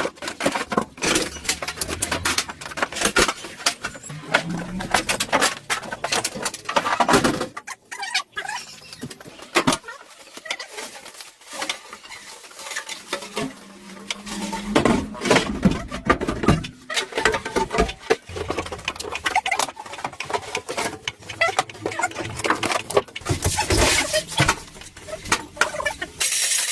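Irregular clinks and knocks of metal tools and parts being handled during tractor repair work.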